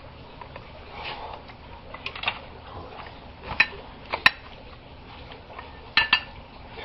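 Metal tools and galvanized gas pipe fittings being handled, giving a few sharp metallic clinks from about halfway through, the last two close together, over a low rustle of handling.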